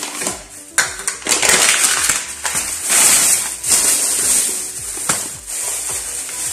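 Thin plastic carrier bag rustling and crinkling as hands rummage in it and pull it open, with sharp crackles throughout; a paper bag crackles as it is handled at the start.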